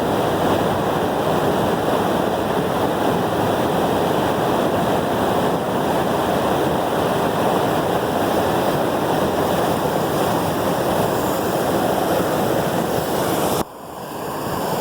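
Waterfall: a loud, steady rush of falling water close by. Near the end the sound drops out abruptly and then swells back up.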